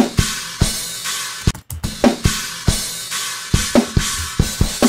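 Slice-edited multitrack metal drum kit recording playing back: kick, snare and tom hits under a constant cymbal wash. The cymbals have a flutter that the editor puts down to a misplaced crossfade between the edited drum slices.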